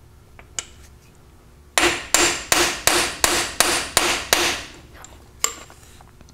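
A hammer striking a metal bushing-driver tool about eight times in quick, even succession, each blow ringing briefly, then one more single strike about a second later. The blows are pressing a new steel-sleeved bronze bushing into the Toyota front differential's bore, where it replaces the worn needle bearing.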